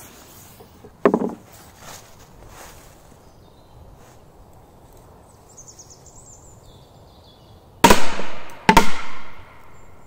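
Two firecrackers going off: two sharp bangs about a second apart near the end, each followed by a short echoing tail.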